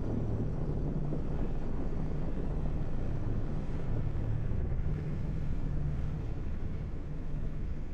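Hero Xpulse 200 dual-sport motorcycle's single-cylinder engine running steadily under way, with wind buffeting the microphone.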